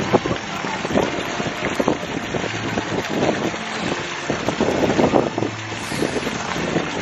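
Strong wind buffeting the microphone in irregular gusts.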